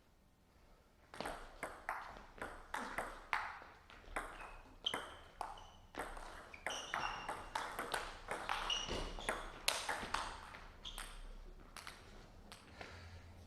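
Table tennis ball being hit back and forth in a rally: quick sharp clicks of the ball on rackets and table, two to three a second, starting about a second in and thinning out near the end. A few brief high squeaks sound between the hits.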